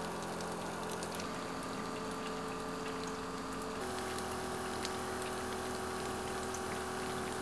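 Small DC-motor water pump running with a steady hum as it pumps water, with faint scattered ticks over it. The hum steps slightly lower in pitch about four seconds in.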